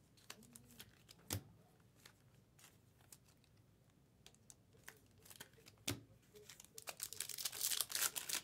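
Light handling sounds, with a couple of sharp clicks, as a card is slid into a plastic sleeve. Near the end comes a dense run of crinkling as a foil Bowman Chrome Sapphire card pack wrapper is torn open.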